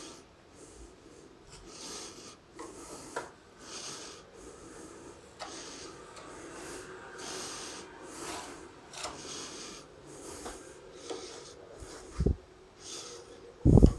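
Metal putty knife scraping filler across a painted door post in repeated irregular strokes. Near the end come two short, loud thumps.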